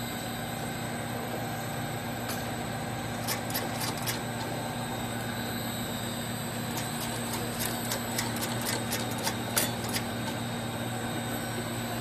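Automatic bottle capping machine and conveyor running with a steady mechanical hum, while irregular sharp clicks and clatter of plastic bottles and caps come in clusters from about three seconds in until near the end.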